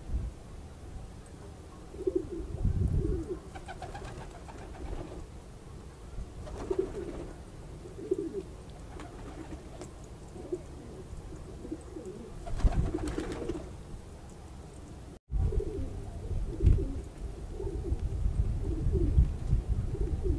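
Domestic fancy pigeons cooing, a run of low warbling coos repeated every second or two, overlapping later on as several birds call, with occasional bursts of low rumbling noise.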